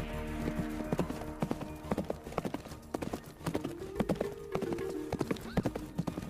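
Horse hooves clopping in a quick, uneven run of hoofbeats, with a few held tones sounding in the middle.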